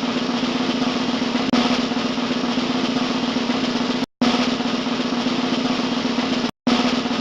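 Fast snare drum roll, cut off abruptly twice, about four and six and a half seconds in, each time resuming after a split second.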